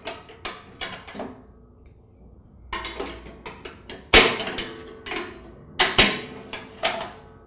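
Metal battery support strap of a Troy-Bilt Pony lawn tractor clanking against the tractor's metal frame as it is worked into its slots. A few light clicks, a short pause, then a run of sharp metallic knocks, each ringing briefly; the loudest two come about four and six seconds in.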